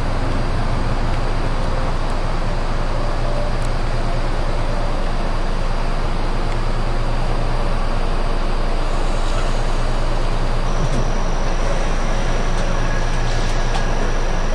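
Steady rushing noise and low hum from an Amtrak passenger train standing at the platform with its equipment running. A thin high whine runs throughout, and a second, higher whine joins about eleven seconds in.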